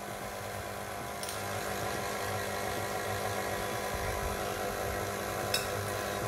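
Electric stand mixer running steadily, beating red velvet cake batter in its steel bowl. Two light clicks, about a second in and near the end.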